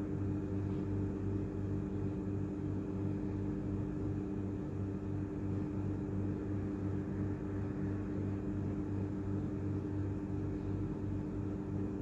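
Steady low mechanical or electrical hum with several fixed tones and a regular low throb, over a faint hiss.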